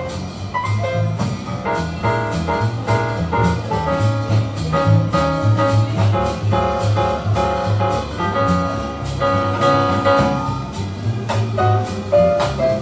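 Jazz music with a steady drum beat and a moving bass line.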